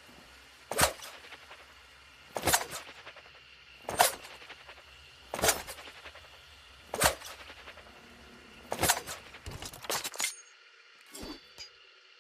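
Throwing knives striking a target: six sharp metallic strikes about a second and a half apart, then a quick flurry of several strikes with a brief ring. A fainter strike comes near the end.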